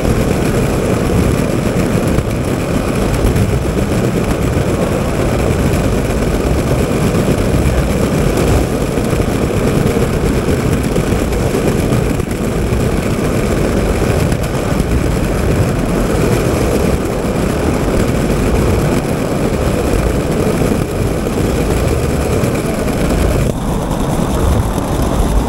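Model train running on metal track, heard from a camera riding on the train: a steady, loud rolling rumble of wheels on rails.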